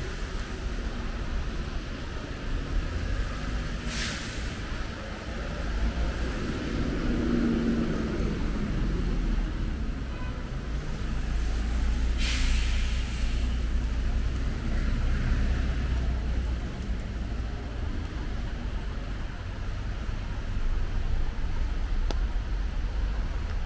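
City street traffic on wet pavement in the rain: a steady low rumble of passing vehicles under an even hiss, with two short sharp hisses, the second about a second long.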